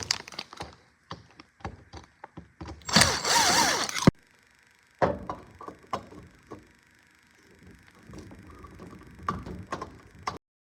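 Knocks, clicks and thunks of hands-on work on a dishwasher being installed, with a louder, noisier burst lasting about a second roughly three seconds in and scattered clunks after it.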